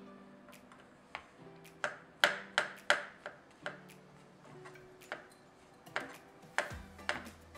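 A serrated kitchen knife slicing a button mushroom, the blade tapping sharply on the cutting board about ten times at an irregular pace. Soft background music plays underneath.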